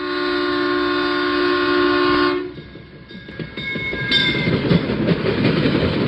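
Locomotive air horn sounding one long, steady chord that cuts off about two and a half seconds in, followed by the rumble and clatter of a train running by.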